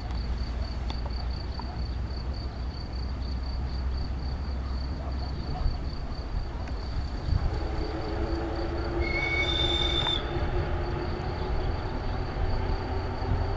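Soviet ER1 electric multiple unit running on the track, a steady low rumble that fills out and grows as the train draws nearer. About nine seconds in, a high wheel squeal on the curve lasts about a second.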